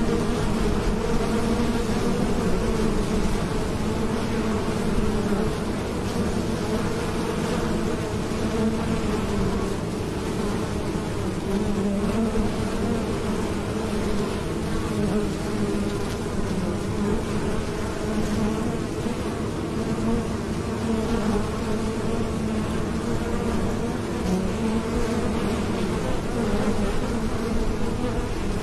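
Honeybees buzzing at a hive entrance: the steady, continuous hum of many bees flying in and out, with a low and a higher tone held without a break.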